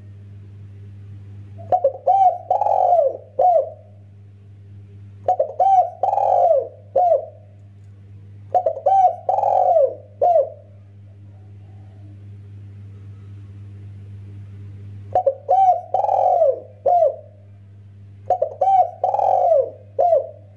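Spotted dove cooing: five phrases of about four coos each, a few seconds apart, over a steady low hum.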